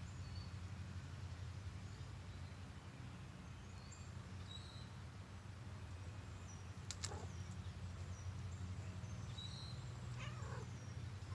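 Quiet outdoor background: a steady low hum with a few faint, short high chirps, one sharp click about seven seconds in, and a short falling animal call near the end.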